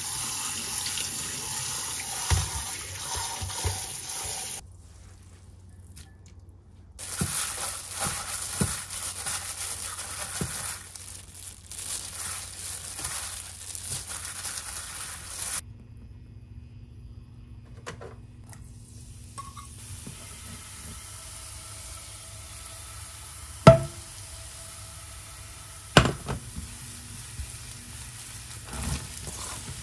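Kitchen cooking sounds across several cuts. Tap water runs at the start, then quieter food preparation with small clinks follows, and two sharp knocks come in the second half.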